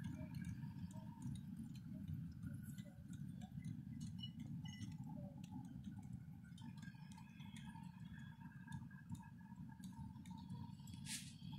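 Faint irregular clicking of a 1½-inch-scale ride-on live steam train's freight cars rolling over the rail joints, over a low steady rumble. A short hiss comes near the end.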